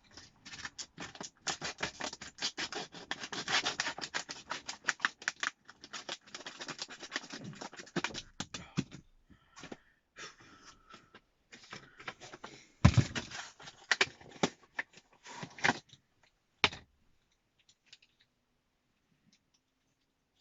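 A knife cutting open a steering wheel knob, dense rapid scratching and scraping for the first several seconds, then scattered clicks and a few sharp knocks, the loudest about 13 seconds in, before it goes quiet near the end.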